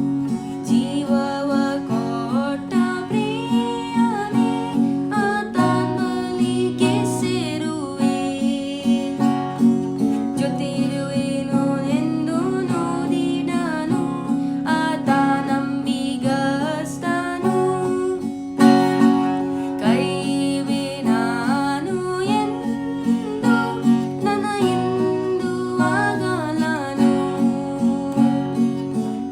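A woman singing a Kannada Christian worship song over steadily strummed acoustic guitar.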